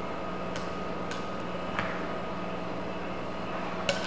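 A spoon stirring pasta salad in a glass bowl, giving a few light clicks of the spoon against the glass over a steady room hum.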